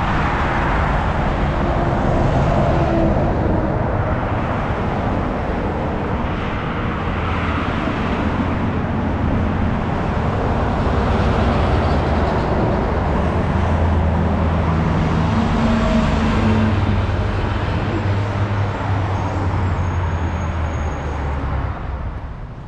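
Steady rushing and rumbling of a vehicle moving at speed, starting suddenly and easing off near the end.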